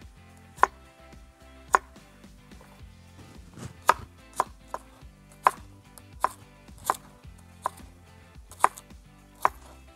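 Kitchen knife chopping garlic cloves on a wooden cutting board: about a dozen sharp single knocks of the blade on the board, unevenly spaced, sparse at first and coming faster from about four seconds in.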